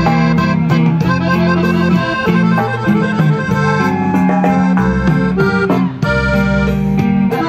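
Norteño music: a three-row button accordion playing the instrumental introduction of a song, with the band's bass and drums keeping a steady beat behind it.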